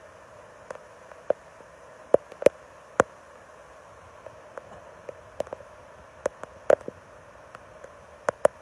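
A faint, steady rush of floodwater under scattered sharp ticks, one to a few a second at irregular intervals, which are louder than the water.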